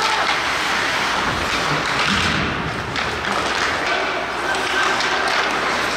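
Ice hockey game play in an arena: knocks and thumps of sticks and puck against the boards over a steady noise of play and a murmur of voices.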